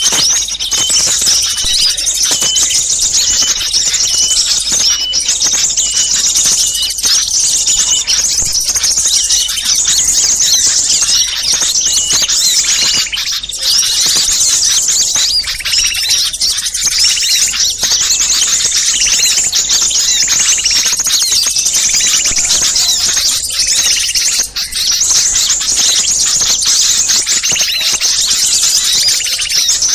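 A dense, busy chorus of many small birds chirping and trilling at once in high, overlapping calls, with a short note repeated about twice a second during the first several seconds. It is a small-bird lure recording of agitated ("ribut") birds, played to draw wild birds in.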